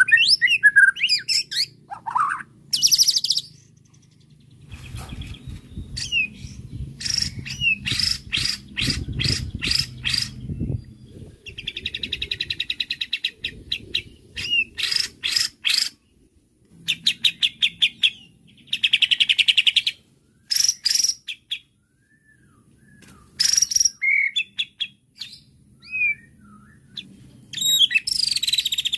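White-rumped shama (murai batu) singing a long, varied song: whistled glides, runs of rapid repeated notes several a second, and buzzy rattling phrases, separated by short pauses. A low rumble sits beneath the song for a few seconds in the middle.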